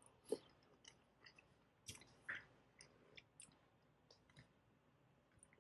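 A few faint, short clicks and soft taps of a metal fork against an open sardine tin, with quiet chewing between them.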